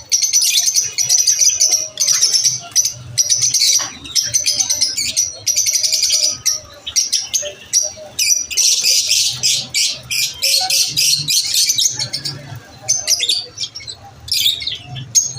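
Lovebirds chirping in a fast, dense stream of high-pitched calls, broken by a few short pauses.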